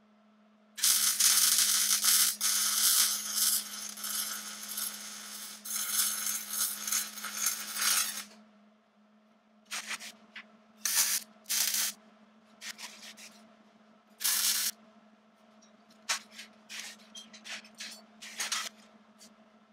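Electric arc welding on steel go-kart frame tubing: a loud crackling, sizzling hiss for about seven seconds, then a string of short bursts and clicks. A low steady hum sits underneath throughout.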